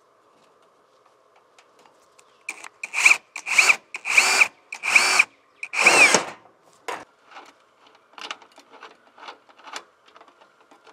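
Cordless drill run in about five short bursts with a steady whine, fastening a solar panel's metal mounting bracket to a corrugated metal roof, followed by light clicks and taps as the bracket and panel are handled.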